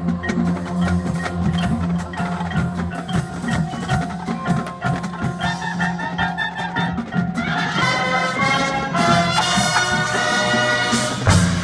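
Marching band music led by mallet percussion: many quick ringing mallet notes over sustained low tones. The mallet part grows busier and higher in the second half, and the low tones come back in near the end.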